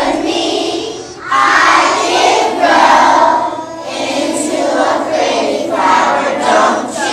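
A group of young children singing together in unison, in short phrases broken by brief pauses.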